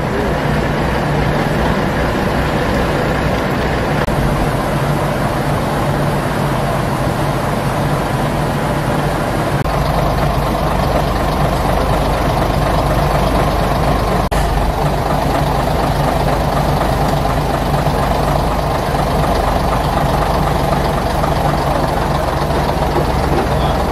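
Heavy truck engine idling steadily, a low rumble that grows a little stronger about ten seconds in.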